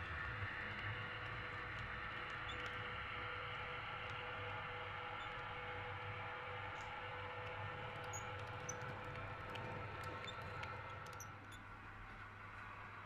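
H0-scale model train running slowly on track: a steady whir with a faint high hum from the motor and small clicks from the wheels on the rails.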